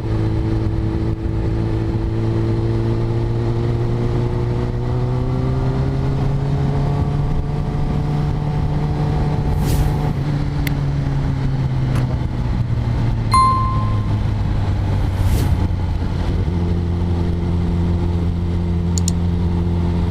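Kawasaki Ninja ZX-10R's inline-four engine running as the bike is ridden, its four-pipe exhaust rumbling. The pitch rises slowly through the first half, eases back down, and settles into a steady lower note for the last few seconds, with a few short clicks in between.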